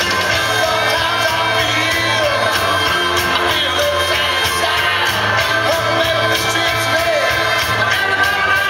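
Pop dance music played loud through a mobile DJ's sound system, with singing over a steady beat and heavy bass.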